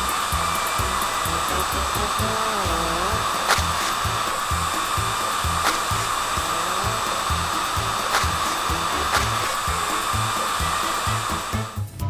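Cartoon sound effect of a spinning car-wash brush: a steady whirring hum, cutting off just before the end, over background music with a steady beat.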